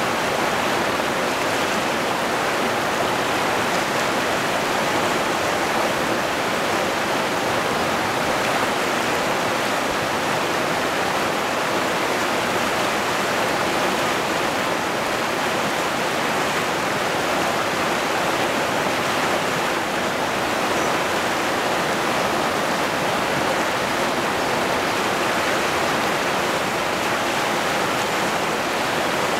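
River rapids rushing over boulders: a steady, unbroken rush of fast-flowing water.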